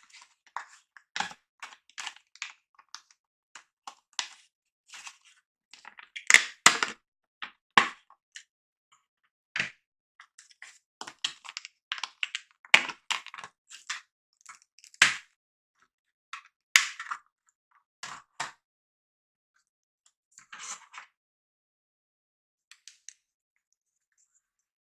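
Irregular plastic crackles and clicks as a G.Skill RAM kit and its plastic packaging are handled, with a few sharper snaps in the middle and only scattered clicks near the end.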